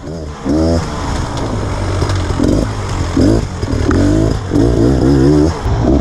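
Beta Xtrainer two-stroke dirt bike engine revving up and down, its pitch rising and falling repeatedly with the throttle as it is ridden.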